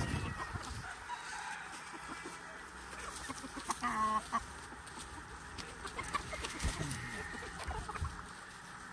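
A flock of chickens and roosters clucking as they feed, with scattered short calls and one louder, sharper call about four seconds in.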